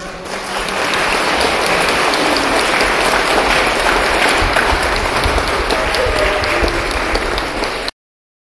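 Audience applauding, swelling during the first second and then steady, until it cuts off suddenly near the end.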